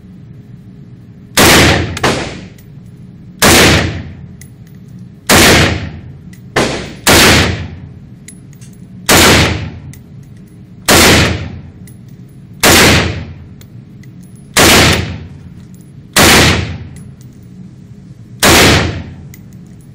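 Ruger Mini-14 rifle firing single shots at a slow, steady pace, about ten loud cracks spaced one and a half to two seconds apart, with two slightly quieter shots close behind two of them. Each shot rings on briefly in the echo of an indoor range.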